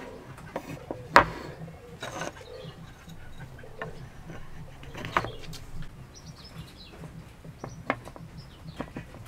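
Hardwood joint blocks knocking and clacking as they are set down and shifted on a wooden workbench. One sharp knock about a second in is the loudest, followed by several lighter ones.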